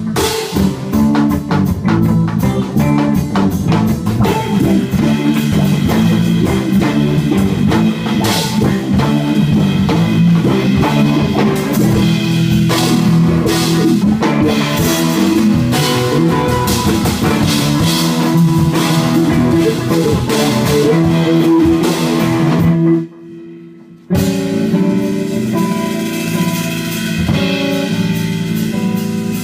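Live jazz quartet playing: electric guitar, electric bass, stage keyboard and drum kit together, with steady cymbal and drum hits. Near the end the whole band stops dead for about a second, then comes back in.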